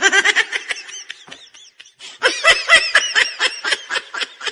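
High-pitched laughter sound effect in quick rhythmic bursts: a short bout of laughing, a brief pause with a few small squeaks, then a longer run of laughing from about two seconds in.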